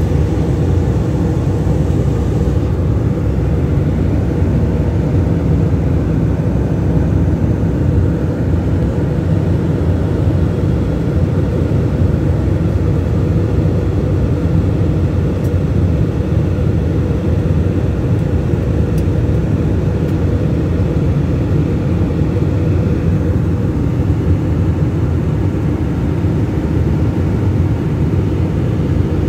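Steady low drone of a jet airliner's cabin in flight: engine and airflow noise through the fuselage.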